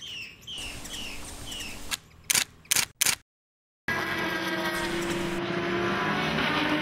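Camera shutter clicks, three in quick succession about two to three seconds in, set between short edited stretches of background sound: a few falling chirps at first, then after a brief silence a steady blend of wavering tones.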